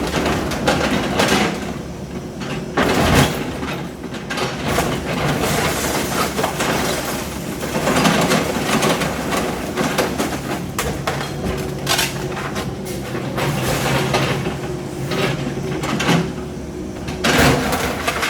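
Demolition machinery running steadily, its engine humming under irregular crunching, knocking and clattering of building debris being broken and moved.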